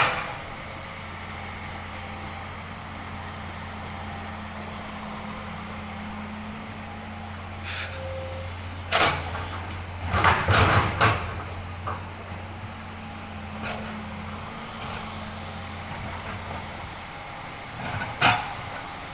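Komatsu excavator's diesel engine running with a steady low hum, broken by sharp metallic knocks and clanks, a cluster of them about halfway through and another single one near the end.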